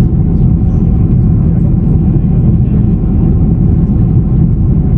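Airliner cabin noise heard from inside a passenger jet: a loud, steady low rumble of the engines and rushing air, with a faint steady whine above it.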